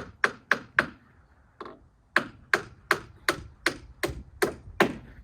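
Hammer driving nails into wood, struck in quick, even blows: four strikes, a short pause, then a run of eight more.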